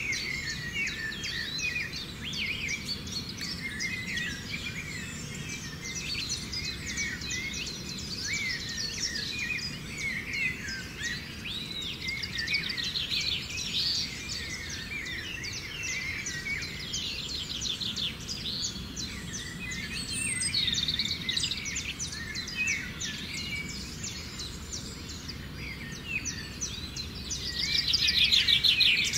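A dense chorus of wild birds chirping and calling over one another, with short fast trills, the loudest of them near the end, over a low steady background hum.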